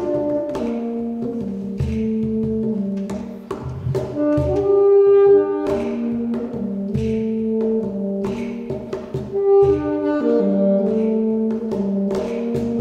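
Saxophone playing a melody of held notes over a cajon beat of sharp slaps and low thumps.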